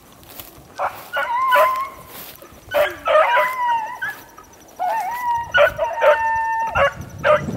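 Beagles baying on a rabbit's trail: three drawn-out howling cries, the last and longest nearly two seconds, broken by short sharp barks.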